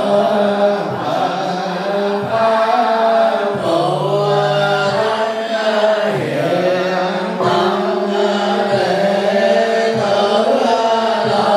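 Buddhist monks chanting a sutra in a steady melodic recitation, the phrases falling in a regular rhythm about every second and a quarter.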